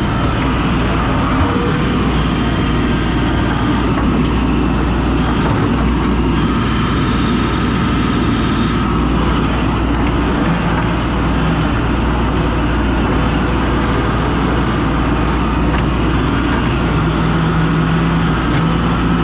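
Skid steer engine running steadily, with a couple of higher tones coming in and out over the steady hum.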